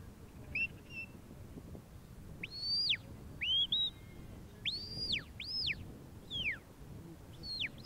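Sheepdog handler's whistle commands to a working Border Collie: a series of shrill single-note whistles, some short and some long, each sliding up and then falling away.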